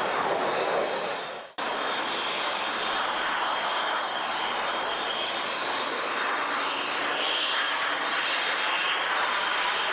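BAC Strikemaster jet trainer, its Rolls-Royce Viper turbojet giving a steady rushing roar with a faint high whine in flight. The sound fades briefly and cuts back in abruptly about a second and a half in.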